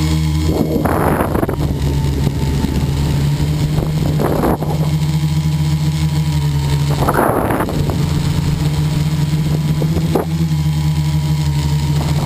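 Model airplane's motor running steadily at one pitch, picked up by the onboard camera, with wind rushing over the microphone in short gusts three or four times.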